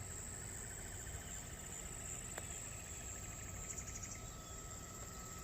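Insects such as crickets chirping in steady, high-pitched trills, with one faint click about two and a half seconds in.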